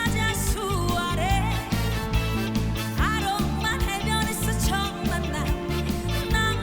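Trot song playing: a band with a steady beat and a pitched melody line, and no clear words.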